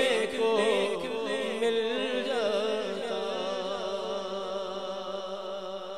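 Male voice singing the drawn-out closing line of an Urdu naat, its melody wavering for about the first three seconds over a steady held drone. The drone carries on alone and fades out near the end.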